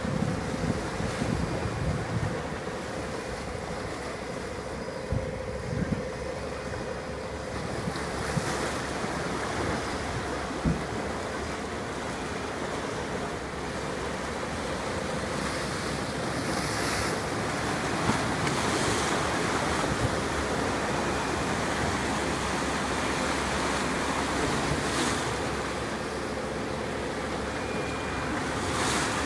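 Sea waves washing and wind buffeting the microphone, a continuous rush that grows somewhat louder in the second half.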